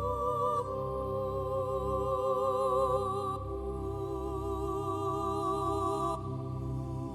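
Slow meditation background music of long held chords with a wavering tone, moving to a new chord every few seconds.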